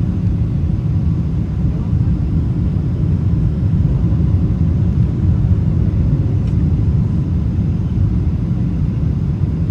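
Steady low rumble of a Boeing 777-300ER's cabin in flight: engine and airflow noise from the GE90 turbofans heard through the fuselage from a seat over the wing.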